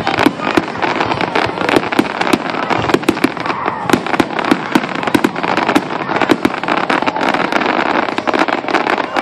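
Fireworks finale: a rapid barrage of aerial shell bursts, several bangs a second, over a continuous crackle.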